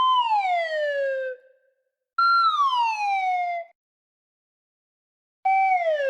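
Slide whistle playing the comic falling 'pyuu': three separate toots, each holding a note for a moment and then sliding down in pitch for about a second and a half, with silence between them. The third begins near the end.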